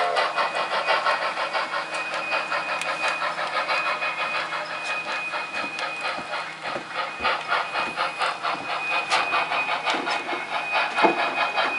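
Model steam locomotive's sound decoder chuffing in a rapid, even rhythm as it moves cars, with a thin high tone that comes and goes. A few sharp clicks sound near the end.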